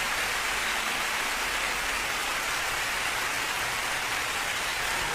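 Steady rain falling, an even hiss at a constant level with no pitched sound in it.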